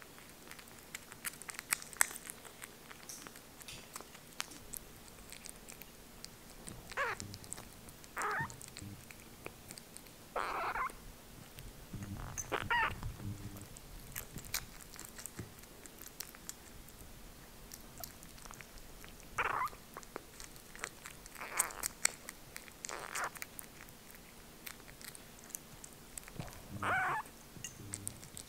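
Tabby kitten eating soft weaning food from a bowl: wet lapping and chewing clicks, broken by about eight short little vocal sounds as it eats.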